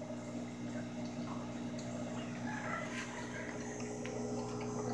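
Aquarium equipment running: a steady low hum with faint water bubbling and trickling from the tank's filter.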